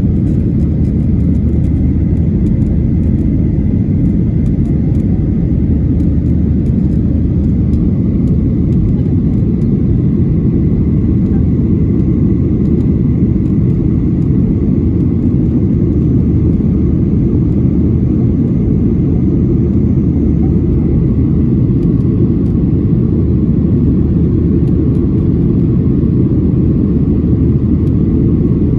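Steady low rumble of a jet airliner in flight, heard from inside the cabin: engine and airflow noise with no change throughout.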